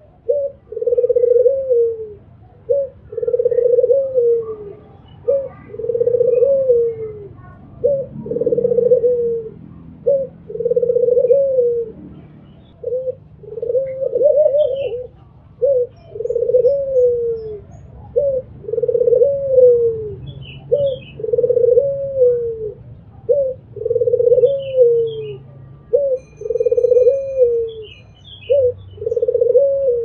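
Albino puter (domestic Barbary dove) cooing over and over, about one phrase every two seconds: a short note followed by a longer falling coo. Small birds chirp faintly in the second half.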